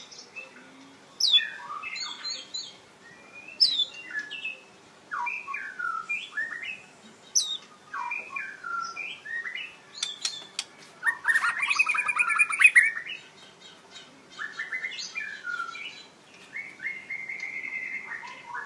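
Red-whiskered bulbul singing a string of short whistled phrases and chirps, some gliding up or down. About eleven seconds in comes a louder, fast, rattling run of notes lasting about two seconds.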